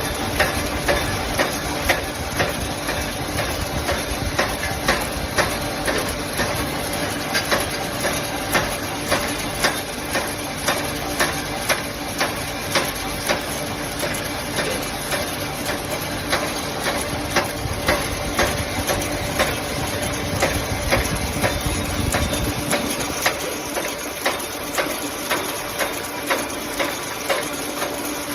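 Bamboo stick-making machine running: a steady motor hum with regular sharp knocks, about two or three a second. A deep rumble underneath drops out about three quarters of the way through.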